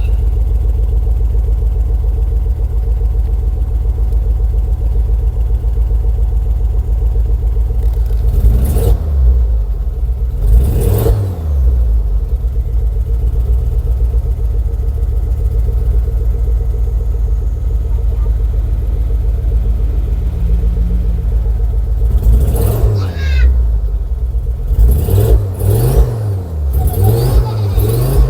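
Ford Focus ST225's turbocharged 2.5-litre five-cylinder engine idling with a heavy low drone, revved up and let fall back twice about nine and eleven seconds in, again a little after twenty seconds, then blipped repeatedly near the end. It is running badly, which the owner calls still bad.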